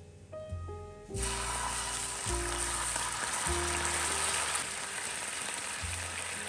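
Marinated beef slices hit a hot, oiled bulgogi grill pan about a second in and start sizzling, a sudden, loud, steady frying hiss that continues.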